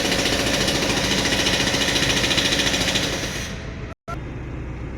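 Maruti Dzire's 1.3-litre diesel engine running with a rapid, even clatter just after its injector circuit wiring has been repaired. The clatter eases off a little past three seconds in and cuts out abruptly about a second later, then a lower, steady running sound follows.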